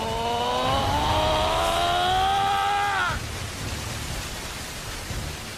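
Anime battle sound effects: a low rumble of a giant mass of sand rising, under a long pitched tone that climbs slowly and then bends down and stops about three seconds in, after which only the rumble remains.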